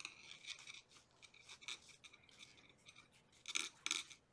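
Seam binding ribbon being drawn by hand through woven upholstery fabric: a faint, scratchy rubbing in short irregular strokes, with two louder swishes near the end.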